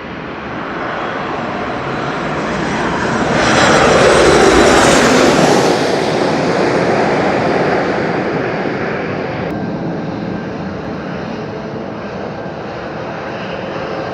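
Airplane passing close by. Its engine noise swells to a peak about four seconds in, falls in pitch as it goes past, then slowly fades.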